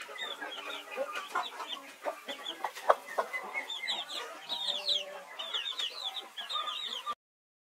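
A brood of chicks peeping rapidly over a hen's low clucking. The sound cuts off abruptly near the end.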